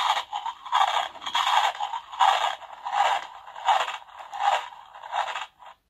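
A children's sound book's button speaker playing a dinosaur chewing and chomping sound effect, thin and without bass: a steady run of munches, about one every three-quarters of a second.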